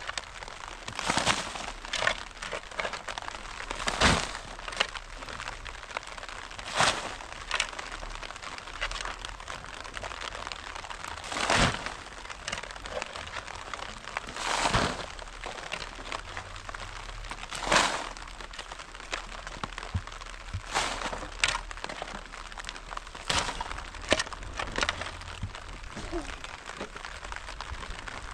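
About a dozen sharp cracks and crunches at irregular intervals, a few every several seconds. Some are brief snaps and others are longer crunches of about half a second.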